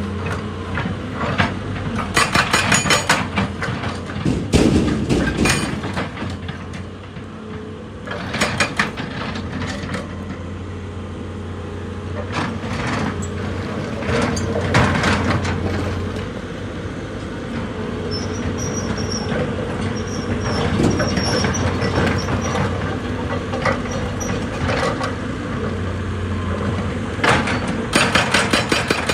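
Excavator engine running steadily, with several bursts of rapid knocking and clattering of rock against the machine, the loudest about two seconds in and near the end.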